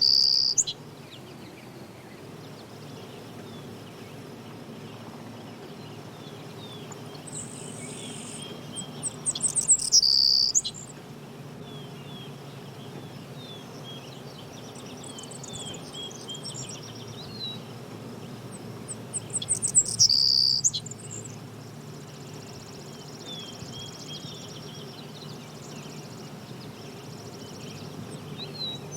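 Songbirds chirping and singing, with a louder burst of song about every ten seconds, over a steady low background noise.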